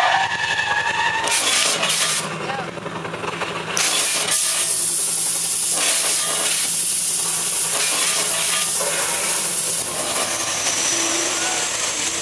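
Stage special effects going off: two short blasts of hissing smoke jets, then a long loud hiss of pressurised smoke from about four seconds in, over a steady low hum. Near the end the hiss gives way to flame effects bursting into fireballs.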